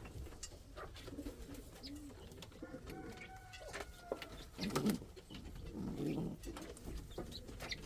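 Domestic pigeons cooing, in a few low calls with the loudest about five seconds in, over small scattered clicks. A faint thin whistling tone is heard briefly about three seconds in.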